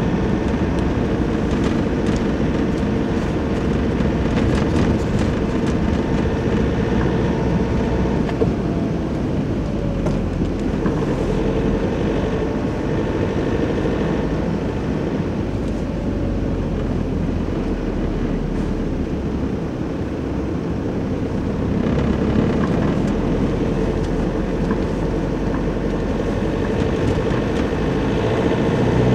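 Nissan Navara pickup driving on snow-covered roads, heard from inside the cab: steady engine and road noise, with the engine note shifting a few times as the speed changes.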